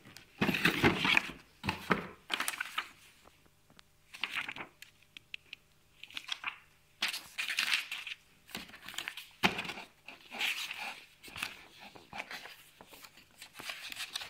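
Cardboard product box being handled and opened, with paper rustling as the instruction manual is taken out and its pages turned: a string of irregular scrapes, rustles and crinkles.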